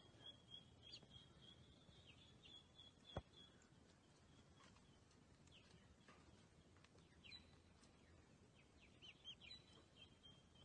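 Near silence, with faint, high bird peeps and chirps scattered through and a thin high tone in the first few seconds. One soft click about three seconds in.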